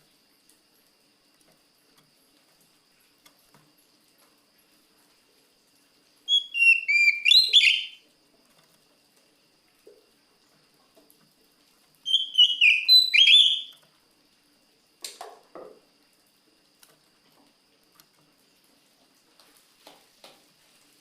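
Oriental magpie-robin (kacer) singing two loud, rapid whistled phrases of falling and sharp notes, each about a second and a half long, several seconds apart. A short, lower sound with a click follows a little later, with faint ticks after.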